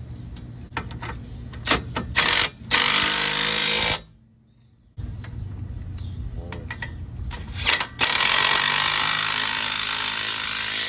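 Cordless impact wrench hammering as it drives the front strut's lower mounting bolts at the knuckle. A few short bursts lead into a run of about a second. After a brief pause comes a longer run of about three seconds.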